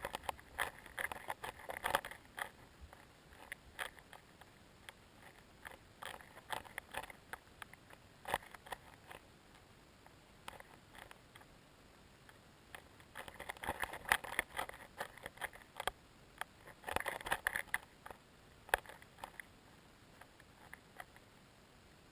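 Irregular clicks, scrapes and crackles from an underwater camera moving through shallow lake water near the bottom. They come in clusters with quieter gaps between.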